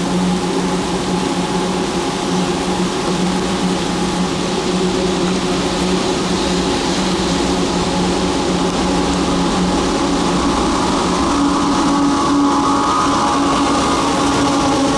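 Two GE AC44CW diesel-electric freight locomotives approaching and drawing alongside, their V16 diesel engines running steadily. The sound grows louder near the end as the lead unit comes close.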